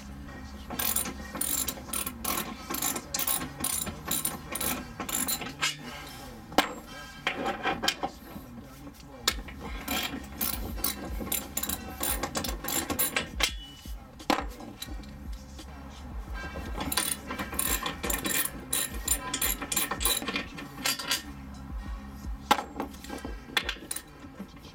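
Hand ratchet clicking in quick runs with short pauses, as the bolts holding a car's steel floor brace bar are worked loose.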